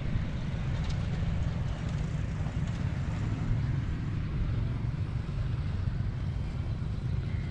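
Wind buffeting the microphone outdoors: a steady, flickering low rumble.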